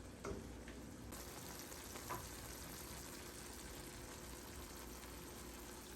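Food frying in a pan: a faint, steady sizzle, with a light click near the start and another about two seconds in.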